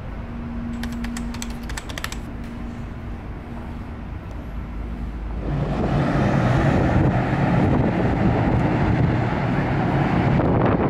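A steady hum inside the ferry, with a quick run of clicks about a second in. About halfway through it gives way to louder wind noise buffeting the microphone on the ship's open deck.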